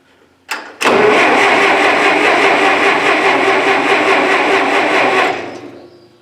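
Massey Ferguson 65 tractor's starter motor cranking the gasoline engine for about four and a half seconds, after a short burst just before. The engine turns over but never fires, as the ignition has no spark.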